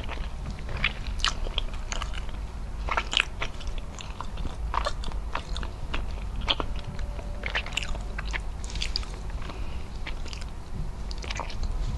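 Close-miked chewing with wet, sticky mouth smacks and clicks, irregular throughout, from eating soft, gelatinous braised beef trotter skin and tendon with rice by hand, over a steady low hum.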